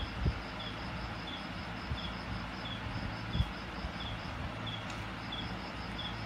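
Steady hiss with a faint, short high chirp repeating about three times every two seconds, and a few soft knocks, the loudest about three seconds in.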